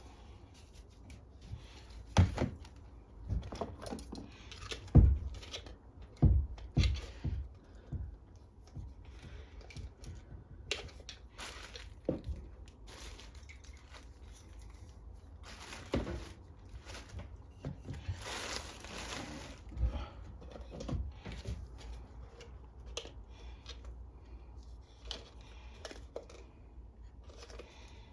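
Small metal carburetor parts being handled and set down: scattered clicks and knocks, busiest in the first few seconds, with a brief hiss a little past the middle.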